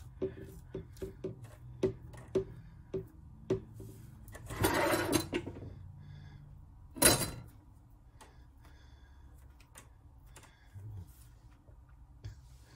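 Butternut squash seeds being scooped out of the halved squash and dropped into a metal mesh strainer. There is a run of small taps, a short scraping rustle about five seconds in, and one sharp knock about seven seconds in.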